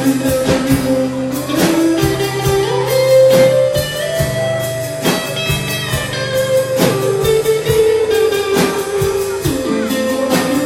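Live band music led by guitar, with held, gliding melody notes over drums keeping a steady beat.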